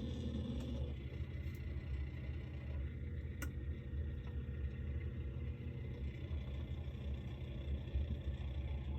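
Refrigerator running with a steady low hum, with a single sharp click about three and a half seconds in.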